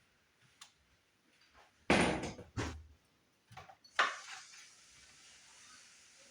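Wood and hardware handling noises: a loud cluster of knocks and clunks about two seconds in, a few lighter taps, then one sharp clack about four seconds in.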